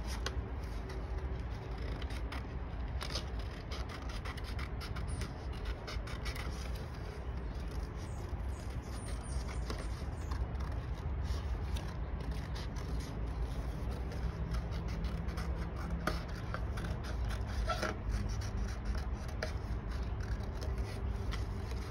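Scissors cutting out a shape from paper: many small irregular snips with paper rustling, over a low steady hum.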